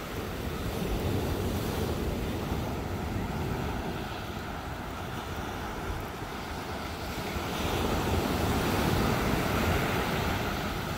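Ocean surf breaking and washing up the beach, swelling twice, with wind rumbling on the microphone.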